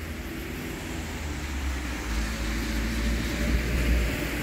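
Street traffic: a motor vehicle's engine running past, growing louder over the second half, over a low rumble.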